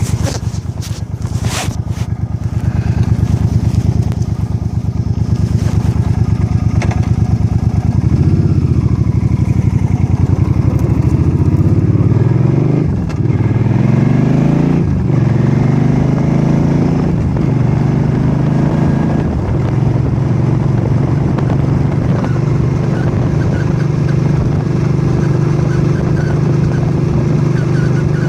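Suzuki C50 V-twin engine pulling through the gears: its pitch climbs and drops back several times, then holds steady at cruising speed. The bike is being run up to the speed where its owner hears a chirp begin, around 75–80 km/h.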